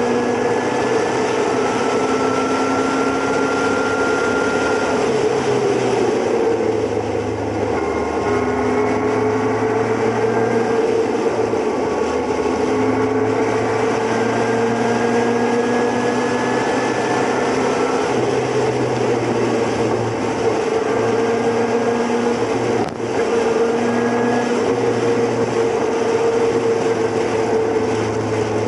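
Motorcycle engine running steadily at highway cruising speed, with wind and road noise; its pitch drifts gently up and down with small changes in speed.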